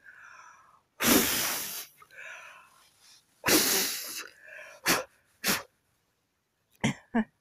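A person blowing hard on a dandelion seed head, two forceful blows of breath rushing across the microphone, each lasting nearly a second. A few short puffs of breath follow.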